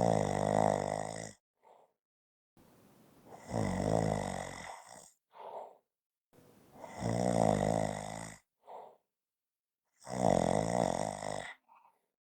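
Snoring: four long, rattling snores about three seconds apart, each followed by a short, softer breath, with silence between them.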